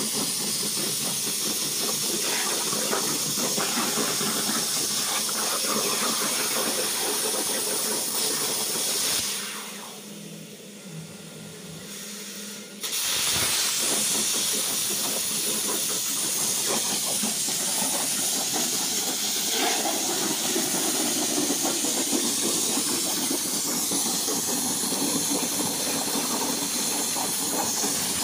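Plasma cutting torch on a portable CNC gantry cutting steel plate: a steady hiss of the arc and its gas jet. The hiss fades away for about three seconds near the middle, then cuts back in suddenly.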